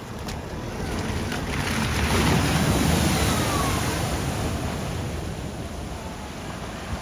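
A vehicle driving through a flooded ford: a rush of splashing water that swells over the first two seconds or so, peaks, and then slowly fades away.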